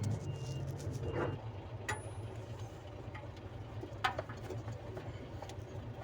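A few sharp metallic clicks and knocks from hand tools and parts being worked on a truck gearbox, about three separate strikes, over a steady low hum.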